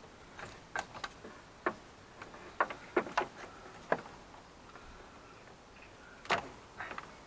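Scattered light clicks and taps, with one louder knock about six seconds in, as hands work the old serpentine belt off the pulleys of a Land Rover TD5 engine that is not running.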